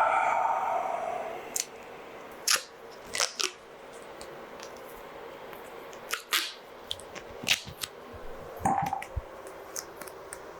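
Scattered sharp clicks and taps from tools and parts being handled during a rifle stock repair, after a louder sound of about a second and a half at the start.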